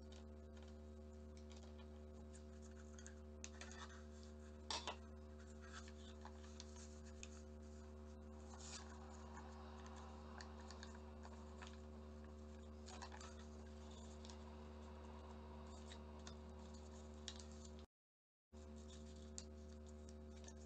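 Faint rustling and creasing of origami paper being folded by hand, with a pair of sharp taps about five seconds in, over a steady low electrical hum. The sound cuts out completely for half a second near the end.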